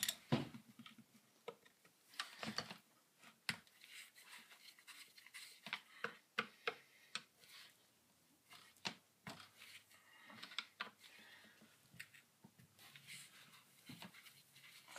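A screwdriver working at screws in a small chainsaw's plastic housing: light clicks, taps and scrapes, scattered and uneven.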